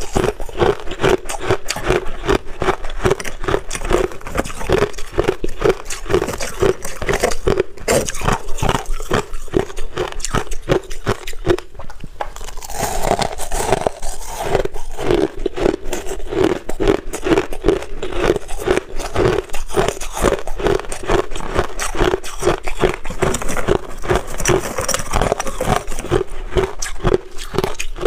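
Crushed ice being bitten and chewed, close-miked: a continuous, rapid run of sharp crunches.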